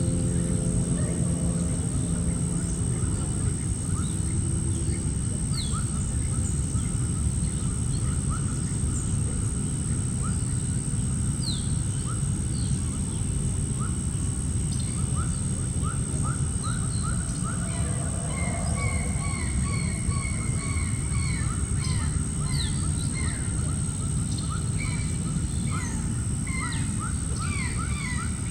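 Many birds calling in quick short chirps, growing busier about two-thirds of the way through, over a steady low background noise and a constant high-pitched tone.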